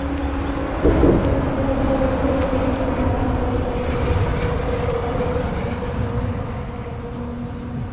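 Boat motor running steadily as the bass boat moves to a new spot, with a low rumble under a steady hum. There is a knock about a second in.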